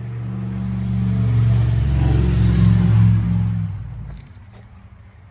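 Car engine running and revving, building over a few seconds, then stopping sharply about four seconds in. A few light metallic clicks and jingles follow.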